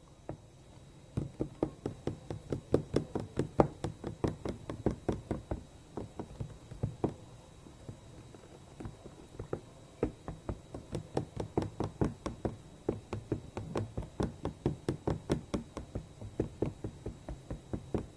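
A utensil knocking rhythmically against a bowl as a thick cream mixture is stirred by hand, about three or four knocks a second, pausing briefly about halfway through.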